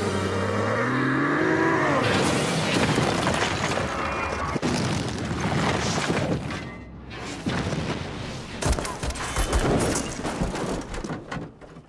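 Film action soundtrack: a rising pitched wail gives way to a long, heavy explosion of fire and shattering debris under orchestral score. After a brief drop, a quick run of sharp impacts comes near the end.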